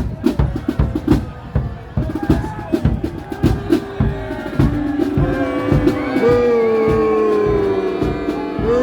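Marching-band drums beating a fast, driving rhythm, joined about halfway through by held melody notes from the band.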